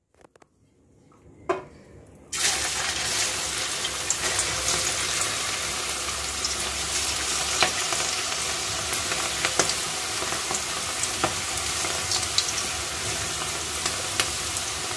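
Batter-coated okra pieces dropped into very hot oil, setting off a loud deep-fry sizzle about two seconds in that holds steady, with scattered pops and crackles. Before it, a single faint click.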